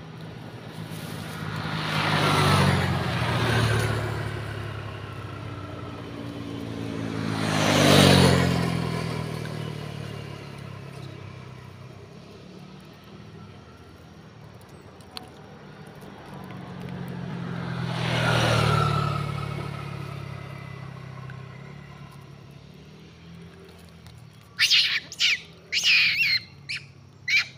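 Motor vehicles passing by on the road three times, each one swelling up and fading away, the middle one loudest and dropping in pitch as it goes by. Near the end, a quick run of short high-pitched calls.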